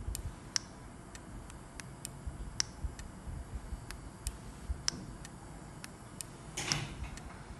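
A series of small, sharp clicks at uneven spacing, about two a second, from a handheld remote control and gate receiver boards being worked during remote programming. A short burst of rustling handling noise comes near the end.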